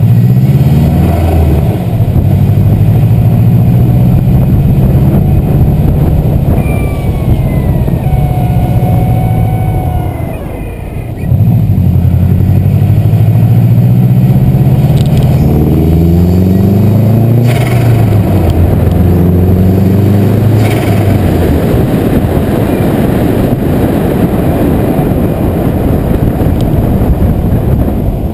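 Turbocharged flat-four engine of a tuned Subaru WRX pulling hard through the gears, its pitch climbing in several runs broken by gear changes. At the shifts, short gusts of vented air come from the GReddy blow-off valve, which has a hunting duck call fitted to it.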